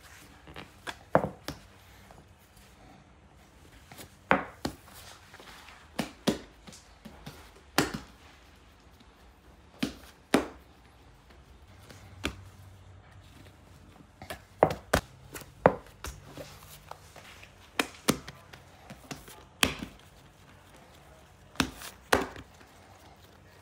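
Irregular sharp knocks and taps from a metal bread stamp (chekich) and hands working bread dough on a plastic cutting board, coming singly and in small clusters every second or few.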